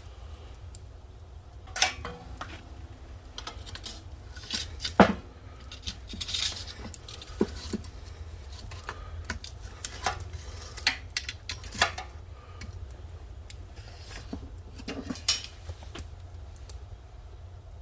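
Irregular clinks and knocks of metal objects or dishware being handled, a few ringing briefly, the loudest about five seconds in, over a steady low hum.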